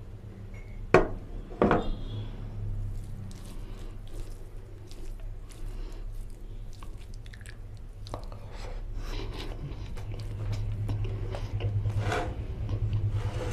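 Two sharp knocks about a second in, a glass bowl set down on the table, then soft wet rustling and clicking of fingers mixing basmati rice into oily mutton curry on a plate, over a low steady hum.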